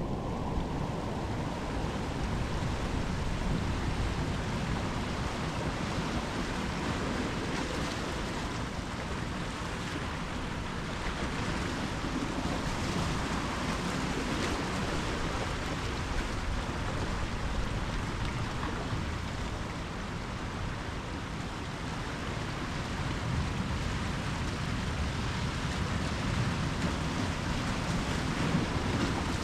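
Ocean surf washing in continuously: a steady rushing noise with a deep low rumble.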